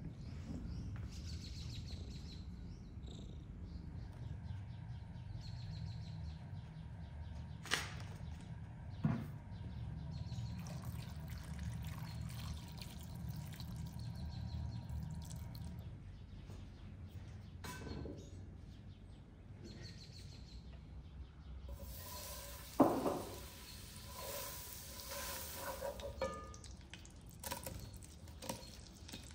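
Water poured into a wooden bowl of peeled chestnuts. Later, fat sizzles in a metal frying pan, with a few knocks as dried fruit is dropped in.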